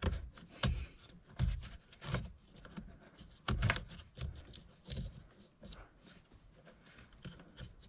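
Hands working wiring and plastic connectors under a car dashboard: irregular light clicks and rustling as a light's plug is fitted back in.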